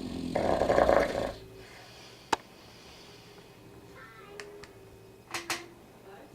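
A sleeping pet snoring: one loud, rattling snore about half a second in, lasting about a second, then a quiet pause between breaths. A single sharp click comes about two seconds in.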